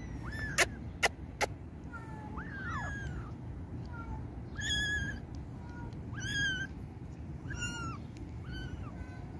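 Two young kittens mewing over and over in short, high, thin cries. Three sharp clicks come in the first second and a half.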